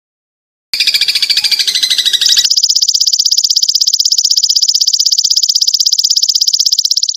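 High, rapid trill from a masteran songbird-training recording: about a second in a busier, mixed call, then from about two and a half seconds a steady, fast, evenly pulsing high trill that cuts off suddenly near the end.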